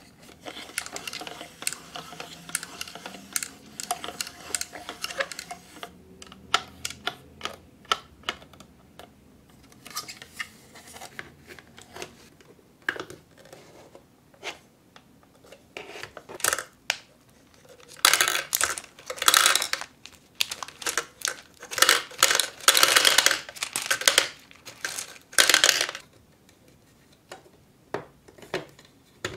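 Small plastic parts of a toy gumball machine being handled and clicked together, with scattered light clicks. About eighteen seconds in, small hard candy balls rattle and clatter into its clear plastic drum in several loud bursts that go on for about eight seconds.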